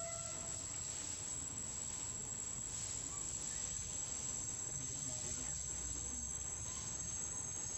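Insects droning steadily in the trees, one high-pitched buzz that holds without a break, with a low rumble underneath.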